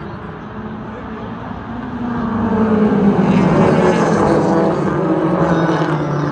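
Race car engines running on a speedway oval, several at once with their pitches shifting. The sound grows louder about two seconds in as the cars come closer.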